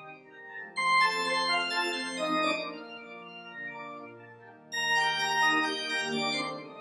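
Church organ playing sustained chords, with loud new phrases coming in about a second in and again near five seconds.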